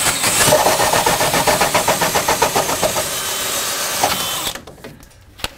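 Power drill spinning a new hole saw through a joist, cutting smoothly at a steady speed, then stopping abruptly about four and a half seconds in as the saw gets through.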